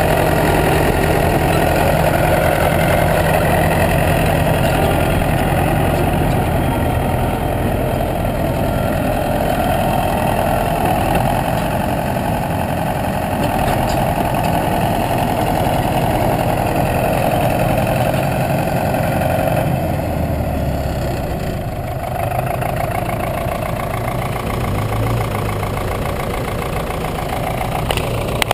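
Bulldozer engine running steadily under work, its low note shifting and easing slightly about twenty seconds in.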